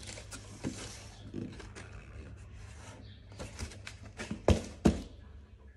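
A cardboard box being handled, with rubbing and scraping of cardboard, then two sharp thumps about half a second apart near the end.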